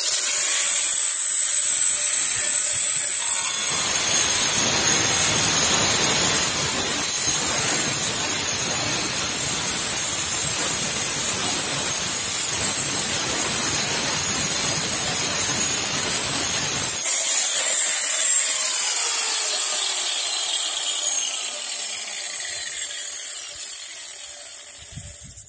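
Angle grinder with a diamond cutting disc runs up to a high whine, then cuts through thin stainless steel sheet, about 1 mm, from about 3 s to 17 s with a loud, harsh grinding noise. The disc goes through easily. Afterwards the grinder runs free again and winds down with a falling whine near the end.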